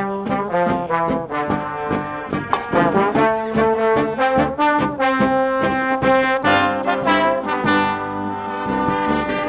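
Marching brass band playing loudly: trombones and trumpets carry the tune over saxophones and a sousaphone bass, with a steady drum beat.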